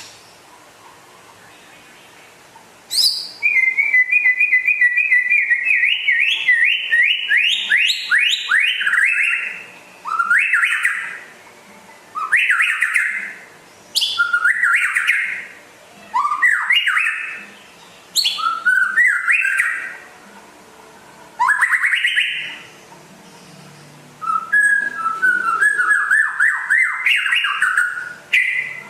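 White-rumped shama (murai batu) singing. After about three seconds of quiet comes a long, fast run of repeated notes that climbs in pitch, then short phrases about every two seconds, and near the end another fast run of repeated notes.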